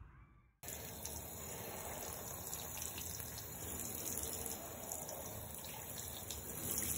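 Water spraying steadily from a handheld shower head onto a Siamese cat's fur and the bathtub floor, starting about half a second in.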